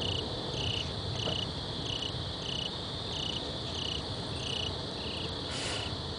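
Cricket chirping at night in a steady rhythm, a short high chirp about every two-thirds of a second, over a constant high drone of other insects. A brief noisy rustle comes near the end.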